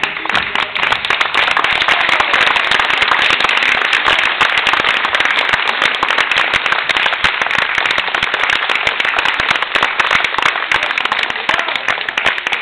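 Audience applauding: dense, continuous hand clapping that eases slightly near the end.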